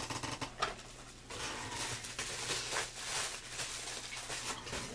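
Mail and packaging being handled and shuffled on a cluttered table: a few light knocks, then about a second in, a steady rustling.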